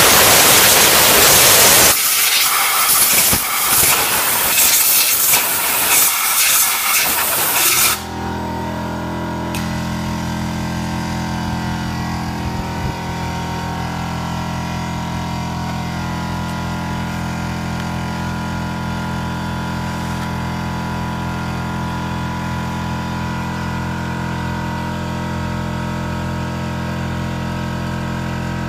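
Compressed-air blow gun blowing out a car's air filter housing: a loud continuous hiss for about two seconds, then short bursts of hiss until about eight seconds in. The hiss stops and a steady machine drone starts, which runs on without change.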